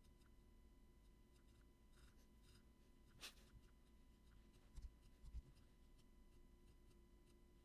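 Near silence: faint room tone with a steady low electrical hum and a few faint clicks and soft thumps.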